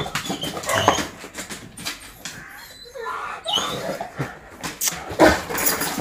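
A dog whining in short, high squeaks, over scattered knocks and scuffs.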